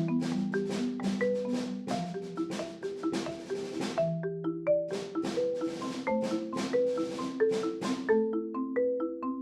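Marimba played with mallets in a flowing passage of about three to four strokes a second, several notes ringing together under a melody. It is raw, unprocessed audio from microphones mounted underneath the bars.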